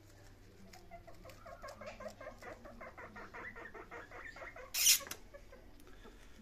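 Guinea pig giving a rapid run of short squeaky chirps, several a second, lasting about three seconds. A brief, sharp hiss-like burst, the loudest sound, comes about five seconds in.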